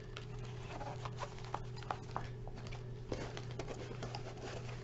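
Light handling noises: scattered small ticks and rustles from a cloth hat and its tag being turned over in the hands, over a steady low hum.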